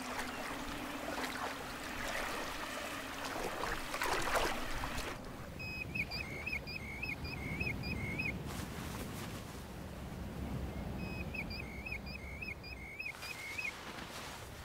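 Water sloshing and splashing as someone wades through shallow water, for about the first five seconds. Then, against a quieter low wind rumble, a bird gives two quick runs of short chirping calls, a few seconds apart.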